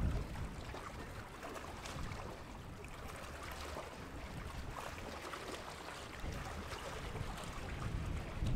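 Waterfront ambience: wind on the microphone making an uneven low rumble over a faint hiss of water, with no ship's horn.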